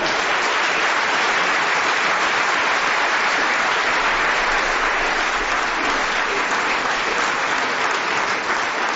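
Live audience applauding: dense, steady clapping that starts right after the last spoken line and holds throughout.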